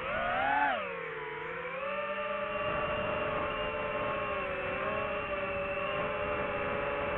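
DJI FPV drone's motors and propellers whining. The pitch swells and then drops within the first second or so as the throttle changes, then holds steady.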